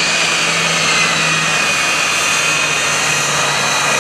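C-2 Greyhound's twin Allison T56 turboprop engines at takeoff power as the aircraft climbs out: a steady, loud propeller drone with a high turbine whine over it. The low hum drops slightly in pitch.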